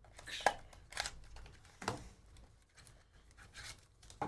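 Light handling sounds of a cardboard trading-card box and a foil card pack: a few short clicks and rustles about half a second, one second and two seconds in, then quieter.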